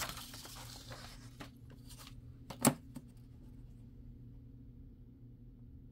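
Paper sheet rustling as it is shifted by hand, a few light clicks, then a single sharp knock of a hard object on the desk about two and a half seconds in, likely the metal ruler being laid down; quiet room tone follows.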